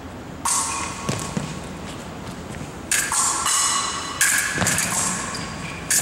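Steel foil blades striking each other about four times, each contact ringing briefly, with thuds of footwork and lunges on the floor.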